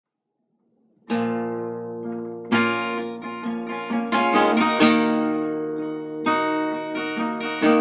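Epiphone EL-00 parlor acoustic guitar strummed with a flat pick: a single chord about a second in that is left to ring, then rhythmic strumming from about two and a half seconds in.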